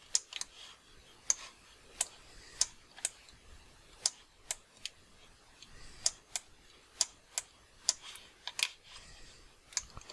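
Irregular clicks of a computer mouse and keyboard, a click every half second to a second, some in quick pairs, over a quiet background.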